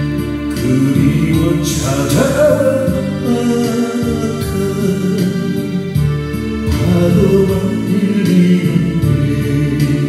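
A man singing into a microphone over acoustic guitar accompaniment. Sung phrases come in about two seconds in and again about seven seconds in, over steady backing chords.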